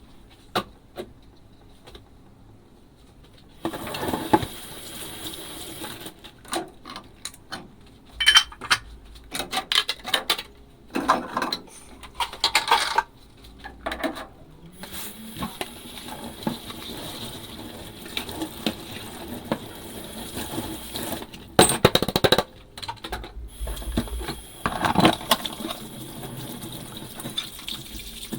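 Hand dishwashing: ceramic and glass dishes clinking and knocking in a sink, with short clusters of sharp clinks, over water running from the tap from about three seconds in.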